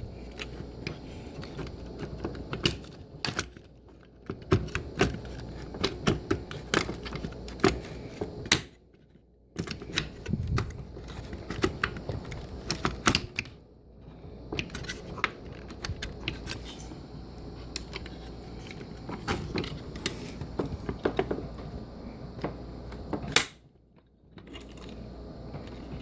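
Irregular small clicks and knocks of hands fitting dishwasher soap-dispenser door parts back together, working the spring's hooks into their grooves, with two brief lulls.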